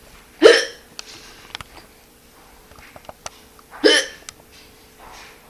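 A woman hiccuping twice, about three and a half seconds apart: two short, sharp catches of the breath with a brief voiced yelp.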